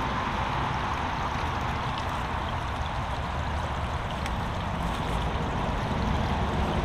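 Fast-flowing brook, running high after a storm, steadily rushing and gurgling over and around a concrete slab. There is a low rumble underneath.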